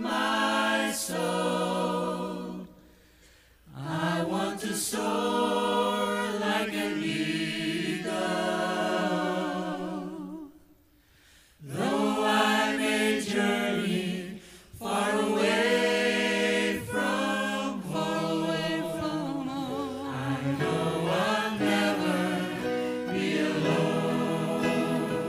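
A vocal ensemble singing a gospel song in harmony, with held notes carrying vibrato. The singing breaks off briefly twice, about three seconds in and again about eleven seconds in.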